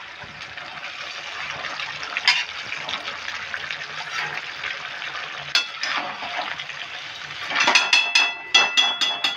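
Kofta curry gravy sizzling steadily in a metal kadhai on a gas burner as fried kofta balls are dropped in, with a few soft knocks. Near the end a metal spatula clinks and scrapes sharply against the pan, ringing.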